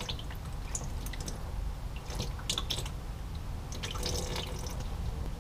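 Old, dark automatic transmission fluid draining from the transmission pan's drain hole into a catch pan, with irregular drips and splashes over a steady low background rumble.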